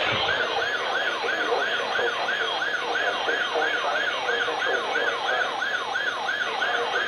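Electronic alert siren of a weather-alert radio receiver signalling a warning, a rapidly repeating falling yelp of about three sweeps a second.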